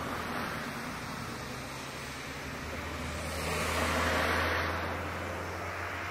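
Airbus A321 jet engine noise: a steady rush over a low hum, swelling to a peak about four seconds in and then easing off.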